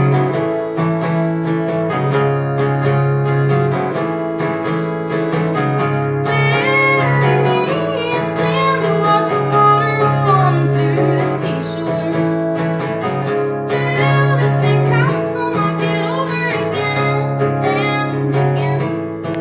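Live acoustic guitar strumming steady chords, with a woman's voice singing over it in two stretches, about six seconds in and again about fourteen seconds in.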